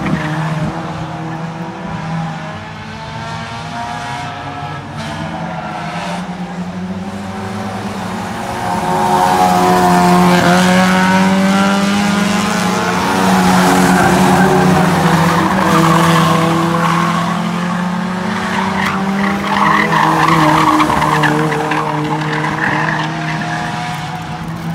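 Several hot rod race cars' engines revving hard as they lap an oval track, several engine notes at once rising and falling in pitch as the cars pass, swelling loudest in the middle.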